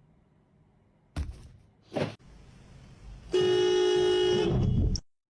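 Two short knocks, then a horn sounds one long, steady, loud blast of about a second and a half that cuts off abruptly.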